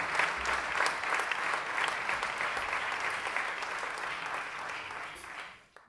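Audience applauding, the clapping thinning out and then cutting off suddenly near the end.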